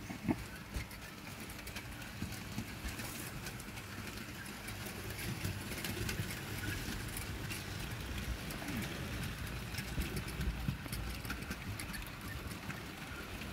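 OO gauge model trains running on the track: a steady low motor rumble with many small clicks from wheels over rail joints and points.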